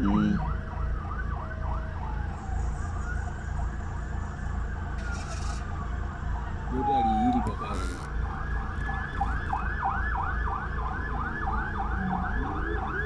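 Motorcade escort siren alternating between modes: a rapid yelp at first, then a slow wail that rises and falls once from about two seconds in, then back to the rapid yelp, about three sweeps a second, from about eight seconds in.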